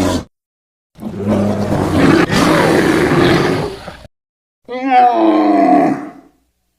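Edited roar sound effects separated by dead silence. A rough, noisy roar starts about a second in and lasts about three seconds. A shorter, pitched, wavering groan follows near the end.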